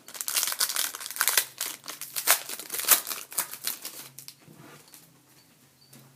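Foil trading-card pack wrapper crinkling as it is torn open and handled, a dense crackle for about four seconds that then dies away.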